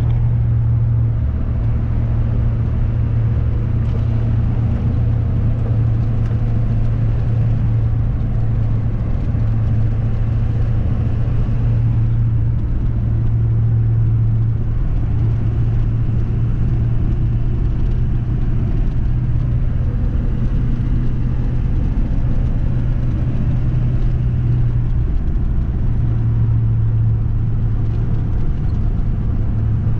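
Motor vehicle running steadily, a continuous low engine and road drone with slight swells in level.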